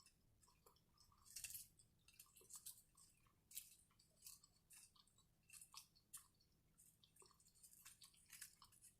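A person chewing food close to the microphone: faint, irregular crunches and clicks, one or two a second.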